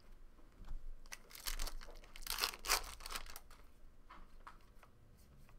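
A stack of baseball trading cards being slid and shuffled by hand, card over card. There is a run of papery rustling and scraping strokes from about one to three seconds in, then a few lighter ticks.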